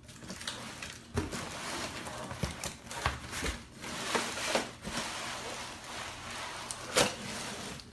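Cardboard box and plastic wrapping rustling and scraping as they are handled, with scattered knocks; the loudest knock comes about seven seconds in.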